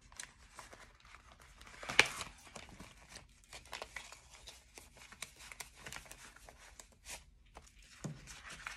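Paper banknotes and a cash envelope being handled and rustled, with many small crinkles and one sharper click about two seconds in.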